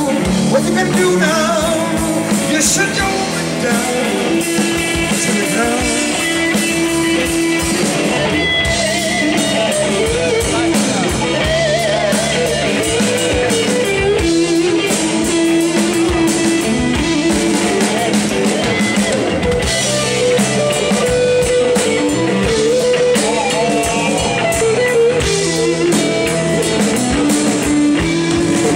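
Live rock band playing an instrumental passage: an electric guitar lead with wavering, bent notes over bass guitar and a drum kit.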